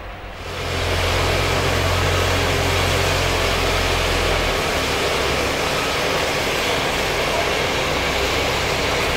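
Steam locomotive 34092 venting steam from its cylinder drain cocks, a loud steady hiss that starts about half a second in, with a low steady engine hum underneath.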